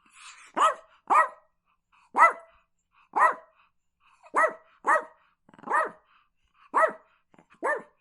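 Chihuahua barking: about nine sharp, high-pitched yappy barks at an uneven pace, some in quick pairs, with a faint low rasp just before the first bark.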